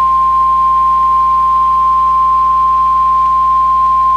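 NOAA Weather Radio's 1050 Hz warning alarm tone: one loud, steady, unbroken beep, the signal that a National Weather Service warning is about to be read.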